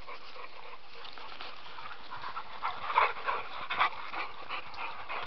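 A dog panting close by, joined about halfway through by irregular footsteps and brushing through scrub.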